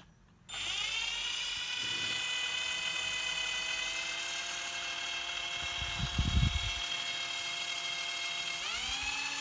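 Ingco cordless drill running free with no load in its first speed: a steady electric motor whine that starts about half a second in. Near the end the pitch glides up and holds higher as the drill speeds up.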